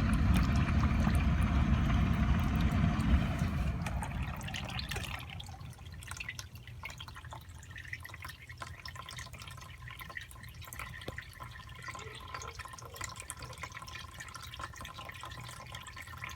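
Condensate water dripping and pouring out of an air handler that has an iced-over coil. The technician puts the leak down to the unit drawing air in through a condensate drain with no trap. A loud low rumble fills the first four seconds and then drops away, leaving the patter of drips.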